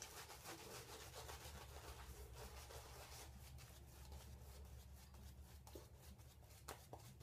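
Gillette Old Type open-comb safety razor rasping faintly through lathered stubble in short repeated strokes.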